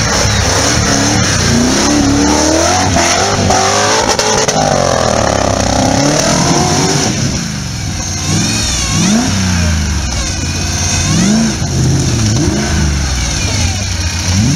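Off-road buggy's engine revving up and down over and over as it crawls through snow and mud. The revs are dense and overlapping at first, then come as more separate rising sweeps in the second half.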